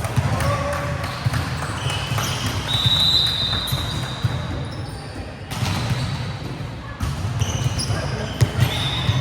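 Sounds of volleyball play on an indoor court: ball hits and thuds, short high squeaks of sneakers on the court floor, and players' voices over a steady low rumble.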